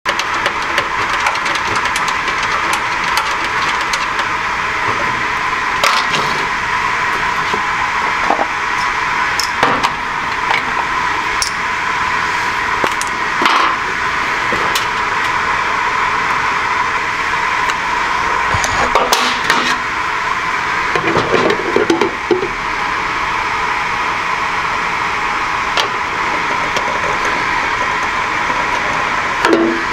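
A steady hiss with scattered light clicks and knocks of a plastic enclosure and a marker being handled on a tabletop.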